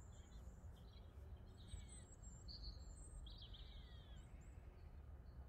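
Faint birdsong: scattered short chirps and trills over a low, steady wind rumble.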